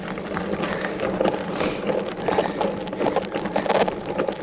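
Bicycle riding uphill on a rough track: the tyres crunch and crackle irregularly over the ground.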